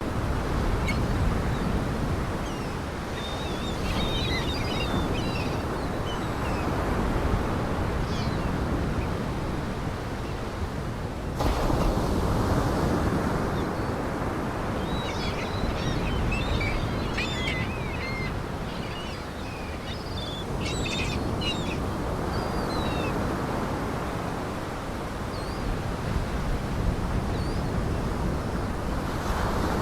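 Lake Michigan waves washing ashore: a continuous rushing surf that swells and eases, with an abrupt jump about a third of the way through. Small birds chirp now and then above the waves.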